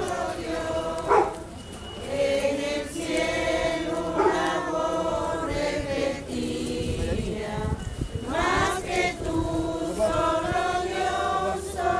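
A crowd singing a religious hymn together in slow, held notes. There is a short sharp sound about a second in.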